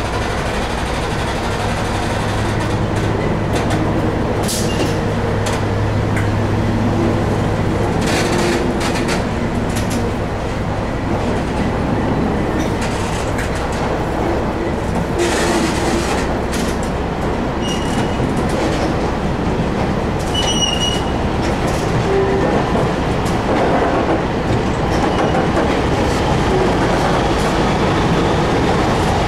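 Test train coaches rolling past, propelled from the rear by a Class 31 diesel locomotive, with the wheels clacking over rail joints. Two short, high wheel squeals come about two-thirds of the way through.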